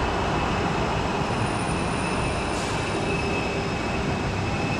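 Jet airliner's engines running, a steady rush of noise with a high whine held over it.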